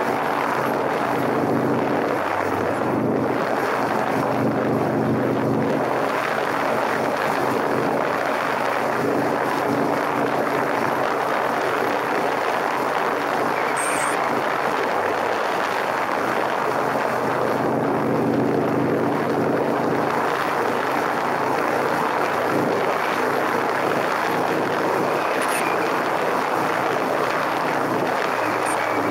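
Motorcycle engine running steadily at cruising speed, under a heavy rush of wind and road noise on the microphone.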